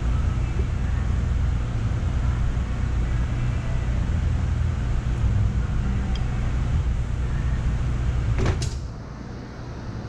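Two flat screwdrivers prying and scraping the bead of a small zero-turn mower tire over its rim, with a steady low rumble through the work. A sharp clack comes at about eight and a half seconds, and after it the sound drops away.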